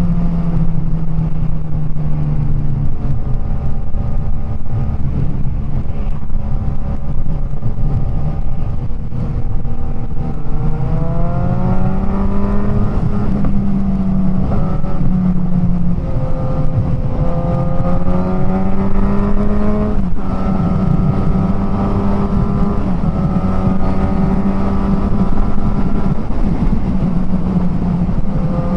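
Suzuki GSX-S1000's inline-four engine, breathing through an aftermarket Firetong Willy Made exhaust and running on a remapped ECU, pulling the bike along at moderate throttle. The pitch eases off at the start, holds steady, then climbs twice as the bike accelerates, with a sudden change in pitch about twenty seconds in before it settles to a steady cruise.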